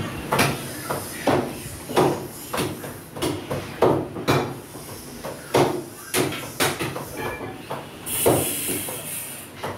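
Meat being chopped in a butcher shop: sharp knocks on a wooden block, irregular, about one to two a second, with a burst of hiss about eight seconds in.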